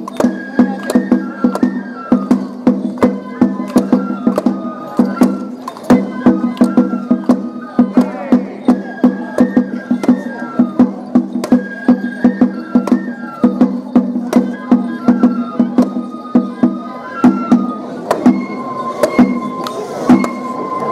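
Shishimai (Japanese lion-dance) accompaniment: a bamboo transverse flute playing a melody of short stepped notes over quick, steady drum beats. Near the end the flute holds one long high note.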